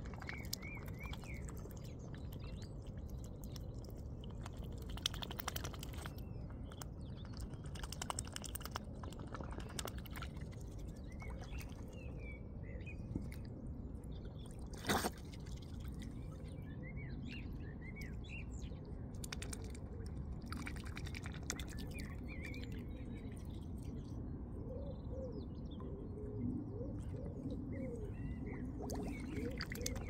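Mute swan dabbling for seeds in shallow water, its bill splashing and sifting at the surface, over a steady low wash of water. Other birds call in the background, with small chirps throughout and a run of geese honking near the end; one sharp click about halfway through.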